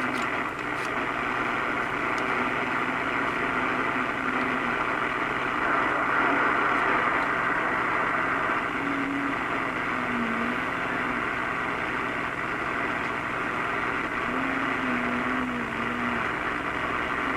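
CB radio receiver hissing steadily through its speaker on a quiet channel, the squelch open, with faint wavering tones coming and going in the static.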